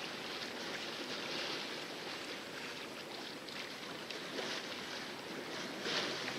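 Water splashing and rushing against the hull of a sailboat under sail in a calm sea: a steady wash with swells of splashing, the loudest splash near the end.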